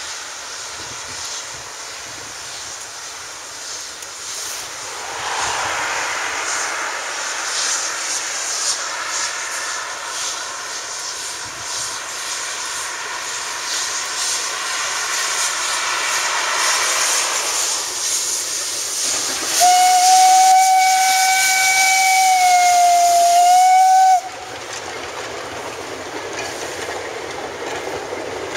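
Narrow-gauge steam locomotive working toward the listener, its steam hiss growing louder; about twenty seconds in its steam whistle gives one long steady blast of about four and a half seconds, dipping slightly in pitch near the end before cutting off suddenly.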